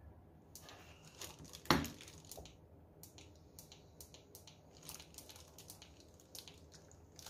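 Faint crinkling and crackling of clear plastic film wrapped around LED spotlights as they are handled, in a scatter of short crackles. One louder sharp click or knock comes a little under two seconds in.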